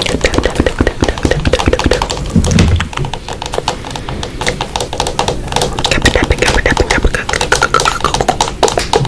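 Rapid, irregular tapping and clicking, many strokes a second.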